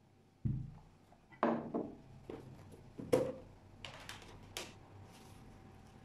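A frying pan set down on a wooden table with a low thud, followed by a run of sharper knocks and clatters as dishes are handled and a bowl is put down beside it.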